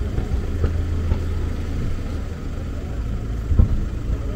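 Aerial fireworks display: a steady low rumble of bursts, with a sharper bang about three and a half seconds in.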